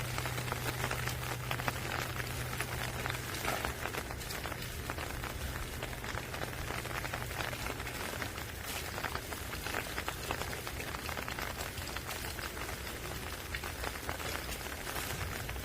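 Steady rain falling, with many close individual drops ticking on a hard surface.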